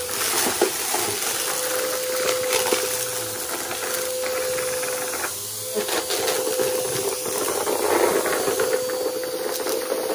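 Aeroswift vacuum cleaner running with a steady motor whine and rushing air, crackling and popping with many small clicks as it sucks up crunchy debris. The whine briefly drops out about halfway through.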